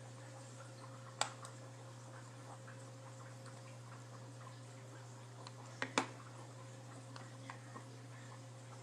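A few sharp clicks, one about a second in and two close together near six seconds, with scattered faint ticks over a steady low hum.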